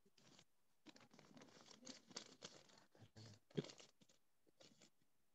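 Near silence with faint, irregular rustles and clicks, one a little louder about three and a half seconds in.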